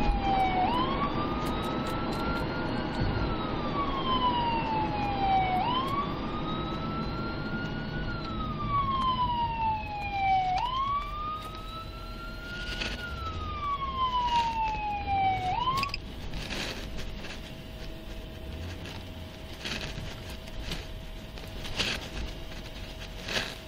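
Police car's electronic siren in wail mode, heard from inside the cruiser: a slow rise and fall repeating about every five seconds. It cuts off about 16 seconds in, and scattered knocks and clicks follow.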